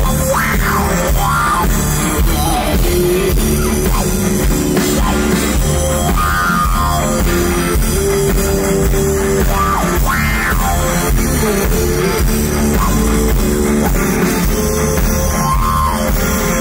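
Live hard rock band playing loud: a lead electric guitar played through a talk box, its notes shaped into vowel-like wah sweeps, over drums and bass.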